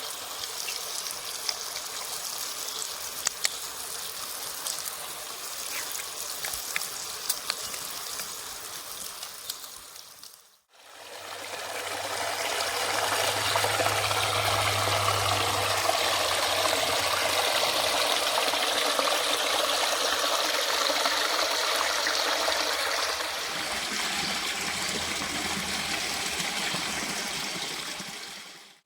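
Running water of a stream, a steady rushing flow in two stretches: it cuts out sharply about ten seconds in and comes back louder.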